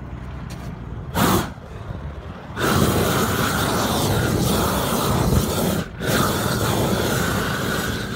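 Propane roofing torch lit and running: a short burst of gas about a second in, then from under three seconds in a steady loud jet hiss that cuts out briefly near six seconds and comes back, heating a roll of roofing membrane that is cold.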